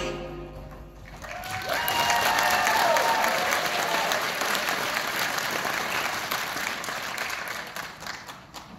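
An audience applauding, with a few voices cheering, as the dance music fades out. The applause swells about a second in and dies away near the end.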